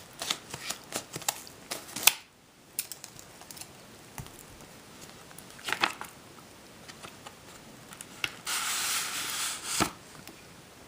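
A small mailed package being handled and opened by hand: a run of sharp clicks and rustles of packaging, then near the end a rasping, tearing noise about a second long that ends in a click.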